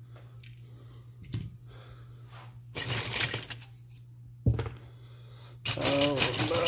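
Die-cast metal toy cars clattering and rattling against each other as a hand rummages through a plastic bin full of them, in bursts, with one sharp knock about halfway through.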